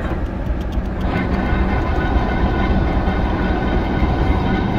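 Railway diesel engine running steadily beside the track, a loud, even low rumble with a faint steady hum above it.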